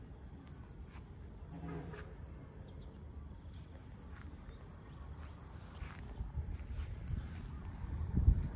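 Crickets or other insects chirping in a steady, high, finely pulsing chorus, over a low rumble, with one loud thump near the end.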